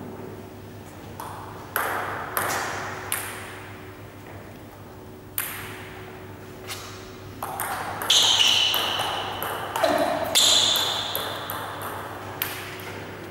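Table tennis ball clicking on the table and rackets, a string of sharp knocks that ring out in an echoing sports hall. Two brief high-pitched sounds about eight and ten seconds in are the loudest moments.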